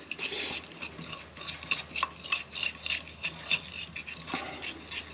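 A fork stirring a paste of fish seasoning, salt and oil in a dish, with quick, irregular scrapes and clinks against the dish, a few per second.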